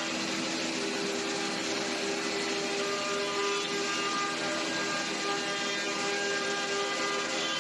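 Spindles of a 5-axis CNC router running at speed and milling wooden chair-back parts. A steady whine of several tones sits over the dense hiss of cutting, at an even level.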